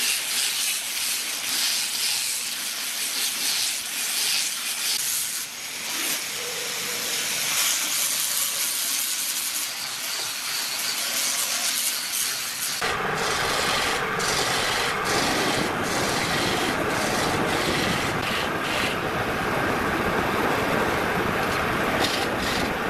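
Small handheld power sander grinding against a carved wooden vase turning on a lathe: a steady, high, hissing rasp of abrasive on wood. About 13 seconds in it changes abruptly to a fuller, lower rushing noise, the propane blowtorch's flame.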